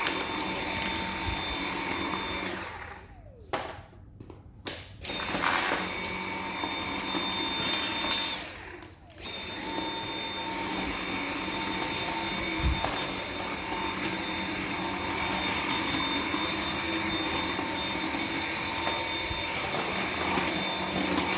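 Dyson V7 cordless stick vacuum with its motorhead running, a steady high whine. The motor cuts out and winds down twice, about three seconds in and again about eight and a half seconds in, then starts back up each time.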